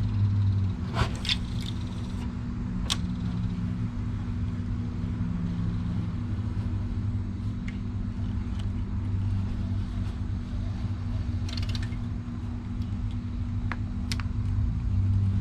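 Steady road traffic from a busy road, a low rumble that swells and fades as cars go by, with a few brief clicks over it.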